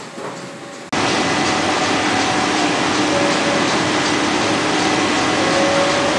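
Narrow-web flexographic label press, a Mark Andy 2200, running with a steady mechanical whir and a faint hum of tones. The sound jumps suddenly louder about a second in and stays steady after.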